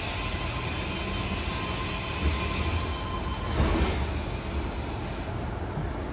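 Tangara electric train standing at a platform: a steady hiss of air starts suddenly and cuts off about five seconds in, with two low thuds in between.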